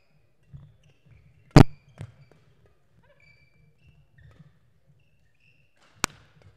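Badminton rackets striking the shuttlecock during a rally: a sharp crack about a second and a half in, the loudest, a fainter one just after, and another sharp crack near the end. Between the hits come short squeaks of court shoes and footfalls on the hall floor.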